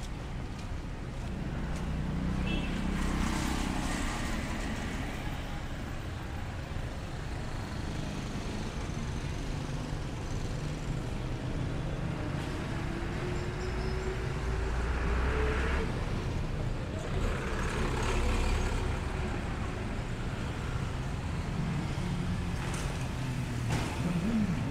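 Street traffic: a steady low engine rumble as several vehicles pass. Midway through, one engine rises in pitch as it accelerates.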